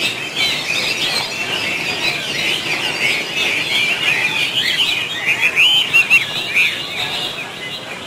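Many caged songbirds singing at once: a dense chorus of overlapping high chirps and warbles, loudest about five to six and a half seconds in.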